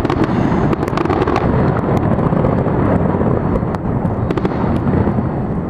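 Fireworks display: a dense, continuous rumble of shell bursts with many sharp crackles and pops over it, thickest in the first second and a half.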